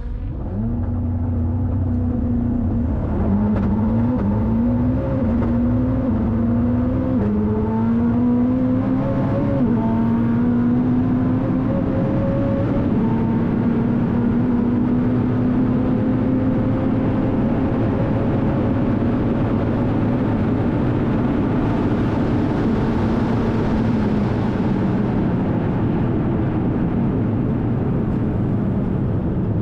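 Koenigsegg Jesko Absolut's twin-turbo V8, running on E85, accelerating flat out from a standstill. Its pitch climbs through a quick series of upshifts in the 9-speed LST gearbox, each one a short drop in pitch, then it holds a long high-speed pull over heavy wind and tyre noise. Past the halfway mark the engine note falls away as the car brakes hard from over 400 km/h.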